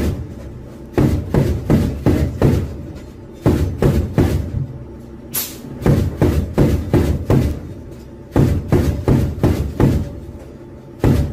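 Armoured vehicle's autocannon firing in repeated short bursts of four or five rounds each, about three rounds a second, with brief pauses between bursts. It is heard from inside the vehicle.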